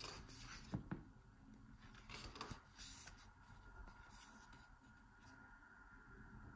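Faint rustling of a booklet's paper pages being turned by hand, a few soft swishes in the first four seconds or so.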